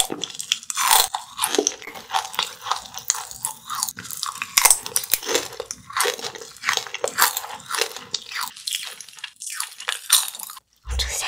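Crunching and chewing of flying saucer wafer candy, a dense run of sharp crisp crackles close to the microphone that eases off near the end.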